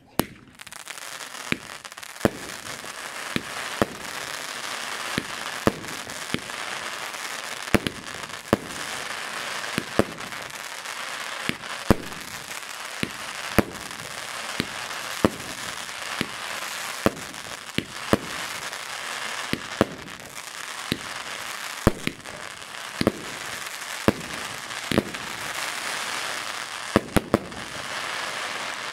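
A consumer fireworks battery (cake) firing in a continuous sequence. A dense hissing crackle runs under sharp shot reports, which come about once or twice a second.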